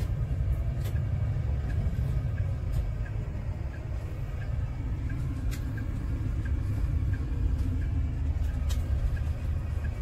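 Diesel route bus heard from inside the cabin: steady engine and road rumble as it turns and drives on, with a light ticking two or three times a second from the turn indicator.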